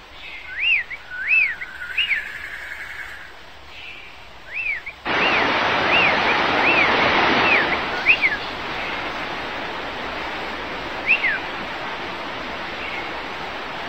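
Rainforest ambience: birds giving repeated whistled calls, each a quick note that rises and falls, over a steady rushing noise. The rushing noise gets suddenly louder about five seconds in.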